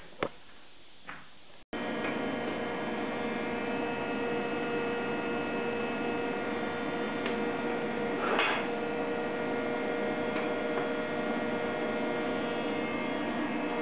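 Two light knocks, then from about two seconds in a TIG welding arc runs with a steady electric hum, flaring briefly about eight seconds in.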